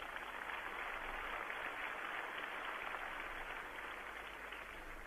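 Distant crowd applauding: a dense patter of many hands that swells up and then dies away near the end.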